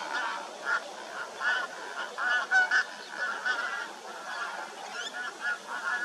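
A flock of waterfowl honking, many short calls overlapping, loudest about halfway through.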